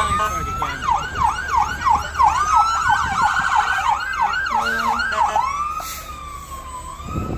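Emergency vehicle's electronic siren. It rises into a wail, switches to a fast yelp of about three sweeps a second, and about five seconds in goes back to a slow wail that falls away near the end.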